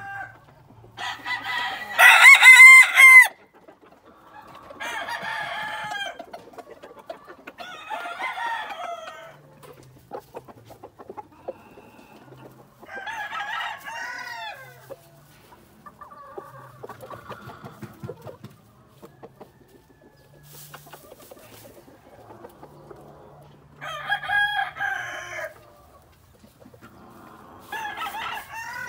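Gamecock roosters crowing over and over: one very loud crow close by about two seconds in, then more crows every few seconds, some of them fainter.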